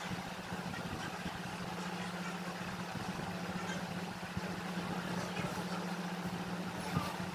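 A steady low hum, with a few faint clicks.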